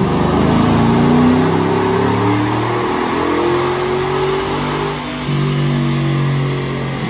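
Chevrolet Silverado's 5.3-litre LS V8 pulling at wide-open throttle on a chassis dyno, on pump gas for a baseline run. The engine note climbs steadily in pitch, changes about five seconds in and runs on loud and steady.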